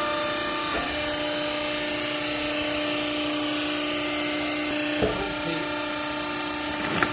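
Hydraulic clothes baler's motor and pump running with a steady hum and whine, with a few brief knocks about five and seven seconds in.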